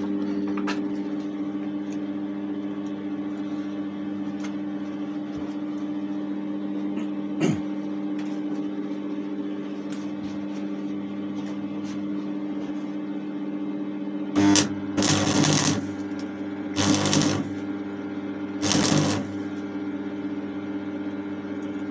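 Stick welder humming steadily, then about two-thirds of the way in the arc is struck four times in short crackling bursts as a Chinese J421 electrode tacks the shovel's steel.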